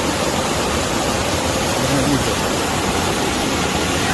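Loud, steady rush of floodwater pouring through a flooded gully.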